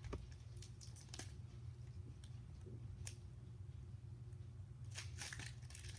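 A few faint, sparse clicks and taps, then, about five seconds in, the crinkle of a foil Panini Prism basketball card pack wrapper being handled and torn open, over a steady low hum.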